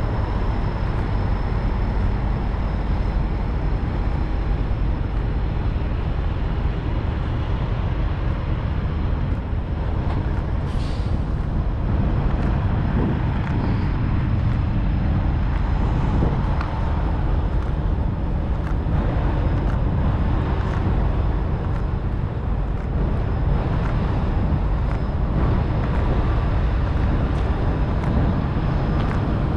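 Steady low outdoor rumble with a few faint ticks now and then and a brief hiss about eleven seconds in.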